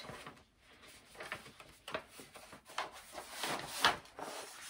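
Paper and cardboard rustling and crackling in irregular strokes as a rolled print is drawn out of its brown paper wrapping and cardboard tube, the loudest crackle about four seconds in.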